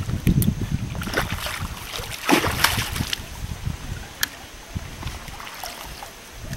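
A hooked fish thrashing at the surface, throwing up water in irregular splashes, the biggest burst of splashing about two and a half seconds in.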